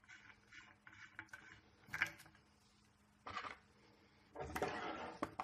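Faint handling sounds of a plastic cable gland body being unscrewed by hand from an outdoor access point's housing: small clicks and scrapes, with short knocks about two and three seconds in and a longer rustle near the end.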